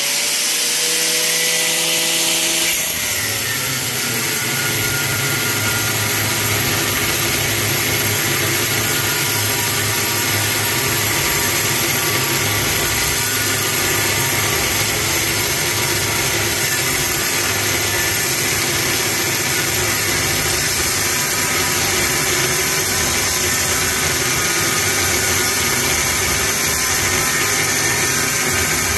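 Corded angle grinder with a cut-off wheel cutting through an electric motor's metal housing, a loud steady grinding whine. In the first couple of seconds the wheel spins with a clear whine that drops in pitch as it bites back into the cut.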